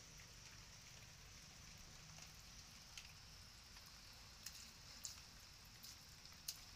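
Faint light rain falling on a wet concrete terrace and its puddles, with a few sharp ticks scattered through it.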